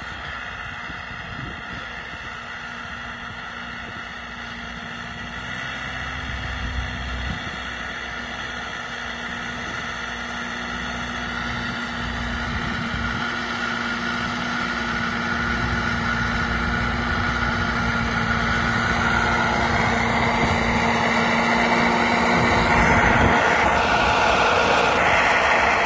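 IFA W50 4x4 truck's four-cylinder diesel engine running as the truck drives through snow toward the microphone, growing steadily louder as it approaches.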